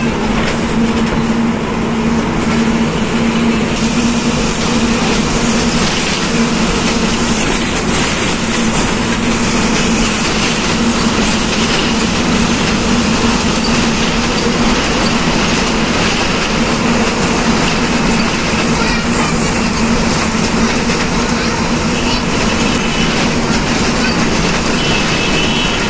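Steady running noise inside a moving vehicle at cruising speed: rushing wind and rumble with a constant low hum.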